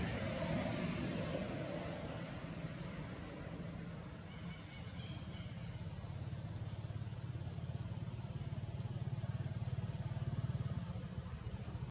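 Steady outdoor background noise: a low hum that swells slightly near the end, under a constant high-pitched hiss.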